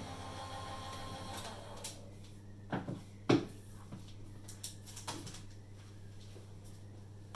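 Die-cutting machine running steadily as an embossing folder is fed through it, stopping about a second and a half in. A few separate knocks follow, the loudest about three seconds in.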